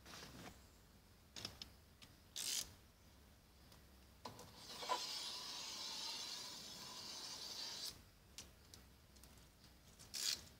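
Car window tint film being handled. There are short rustles and clicks, then a steady scraping rub for about three and a half seconds in the middle, then a few more clicks near the end.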